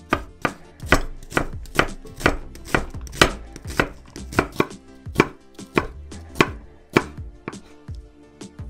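Chef's knife slicing an onion on a wooden cutting board: regular knocks of the blade striking the board, about two a second.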